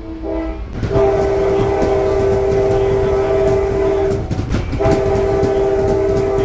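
Nathan K5LA five-chime air horn on Trinity Railway Express locomotive 1004 sounding a chord, heard from inside a passenger coach: a short blast ending about half a second in, then a long blast of about three seconds, a brief break, and another long blast that starts near the end. The train's steady rolling rumble runs underneath.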